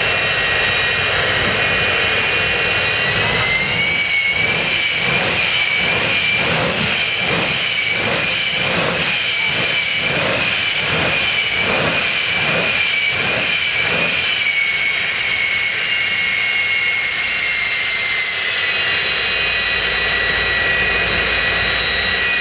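Jet engine of a jet-powered Kenworth drag-racing semi truck running while standing still, with a steady high whine. A few seconds in the whine lifts slightly and the exhaust pulses rhythmically, about one and a half times a second, as flames shoot from the stacks; around eighteen seconds in the whine settles back down.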